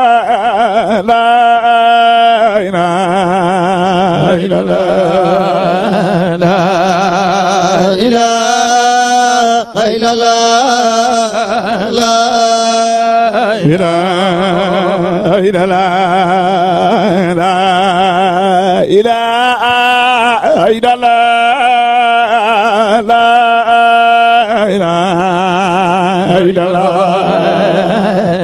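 A man's voice chanting Islamic zikr into a microphone in long, ornamented phrases with a strong wavering vibrato, over a steady held lower note.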